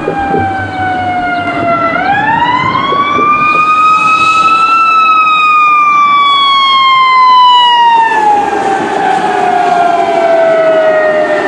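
Fire engine siren wailing. The pitch falls slowly, rises over about three seconds, then falls slowly for about seven seconds and starts to rise again near the end.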